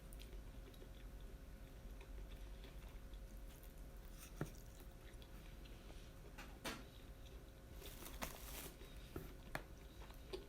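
Close-miked chewing and biting of yakitori, grilled chicken on skewers, with a few sharp clicks and crunchy bites. The loudest click comes about four seconds in, and a cluster follows in the second half.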